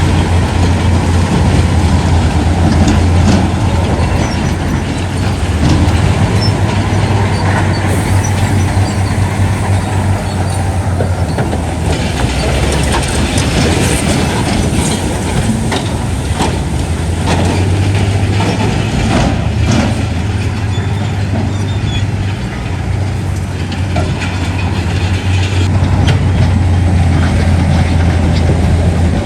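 Heavy earthmoving machinery at work: diesel engines running with a steady low drone, overlaid with irregular metallic clanking and rattling.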